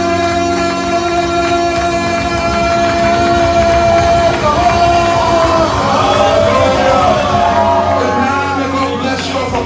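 Church worship music: long held chords, with singing voices coming in about halfway through.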